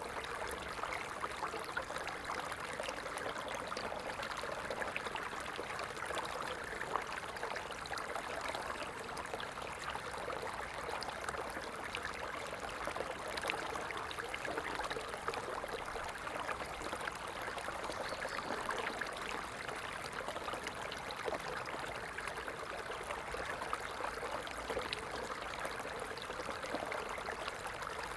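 Small stream flowing steadily, a continuous rushing trickle of water with many small splashy ticks.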